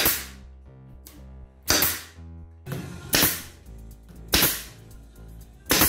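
Pneumatic nail gun firing into plywood: five sharp shots spaced a little over a second apart, each with a short hiss of air, over background music.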